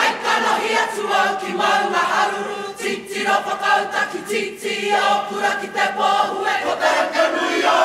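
A kapa haka group singing a Māori song together, many voices in chorus.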